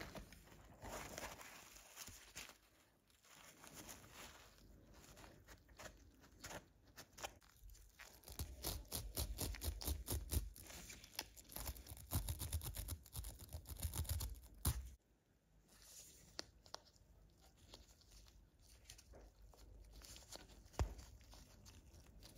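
A small wire brush scraped rapidly back and forth against a diamond-grit rotary burr bit, in a dense run of scrubbing strokes through the middle that stops suddenly. Before and after it come quieter handling rustles from gloved hands, and a single sharp click near the end.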